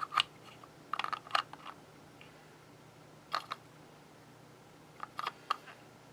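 Light clicks and taps from a puzzle box and its small key pieces being handled, in short clusters: at the start, around a second in, at about three and a half seconds and around five seconds.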